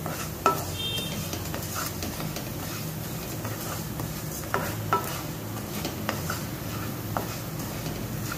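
A wooden spatula stirring split moong dal as it roasts in ghee in a kadhai toward golden brown: a steady sizzle and scrape of the grains, with the spatula knocking on the pan several times.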